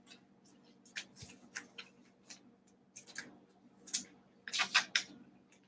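Glossy football trading cards being flipped through and set down on stacks on a table: a string of short light clicks and shuffles, with several close together about four and a half seconds in.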